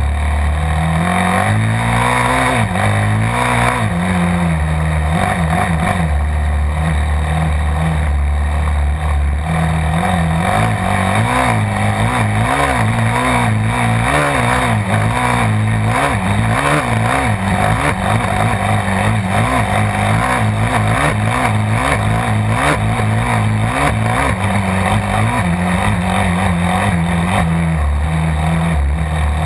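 Yamaha dirt bike engine running under way, heard from a camera on the bike. Its pitch holds fairly steady at first, then rises and falls over and over in quick swells as the throttle is opened and rolled off, settling again near the end.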